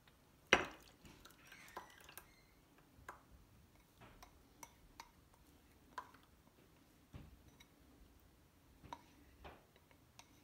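Light, scattered clinks and taps of kitchen dishes and utensils as a custard batter is poured from a mixing bowl into small baking bowls, with one sharper knock about half a second in.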